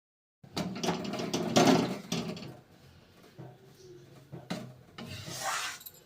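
A spatula scraping and stirring in a cooking pan: a dense run of scraping for about two seconds, then softer single scrapes near the end.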